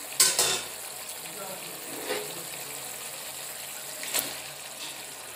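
Pork and gravy cooking in a pot with a steady hiss, broken by a few sharp clinks: a pair just after the start, then single ones about two and four seconds in.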